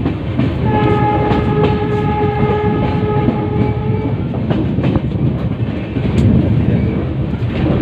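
Passenger train running at speed, heard from an open coach window: wheels rumbling and clacking over rail joints. A steady single-pitch train horn sounds for about three and a half seconds, starting about a second in.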